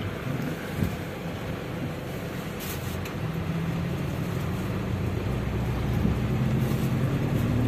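Toyota Hiace van's engine running as the van moves off, heard from inside the cab. Its low hum climbs a little in pitch and level from about three seconds in.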